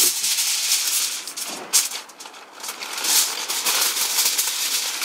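Aluminium foil crinkling and rustling as it is unrolled and folded around parchment-paper-wrapped meat, in uneven bursts of crackle with a sharper crackle a little under two seconds in.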